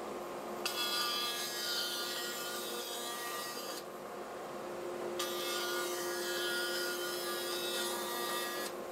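Grizzly G0513X 17-inch bandsaw cutting pine boards in two passes of about three seconds each, with a short lull between them. Under both passes the saw and the dust collector hum steadily.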